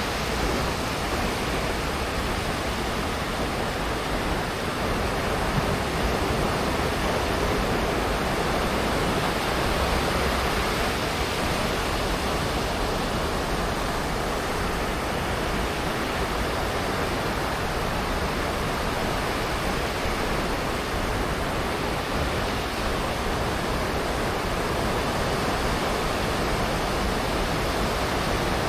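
Sea waves breaking and washing up the beach, heard as a steady, unbroken rush with slow, gentle swells.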